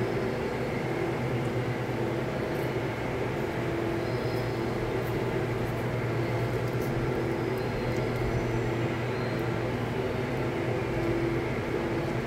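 A steady mechanical hum with a constant noise bed underneath, holding several fixed tones without change.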